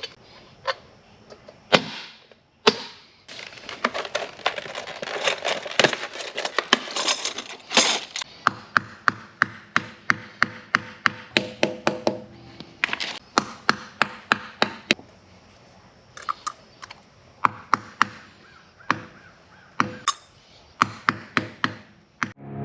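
A long series of sharp clicks and knocks, running about three a second through the middle stretch, with a hissing, rustling noise under them for a few seconds before that.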